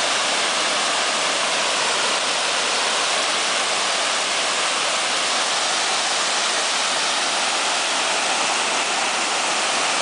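Low rocky waterfall cascading into a pool: a steady, unbroken rush of falling water.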